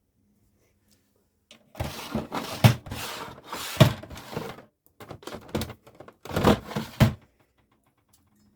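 Four bursts of clattering with sharp knocks, from about two seconds in: things handled and set down on a work surface.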